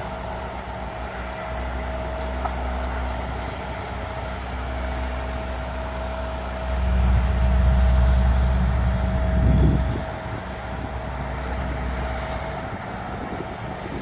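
Diesel engines of heavy asphalt-paving machinery and dump trucks running: a steady low drone with a thin steady whine above it. The drone swells louder from about seven seconds in and drops back shortly before ten seconds.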